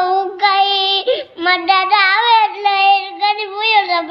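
Young boy crying, a run of long, high, wavering wails with short breaks between them.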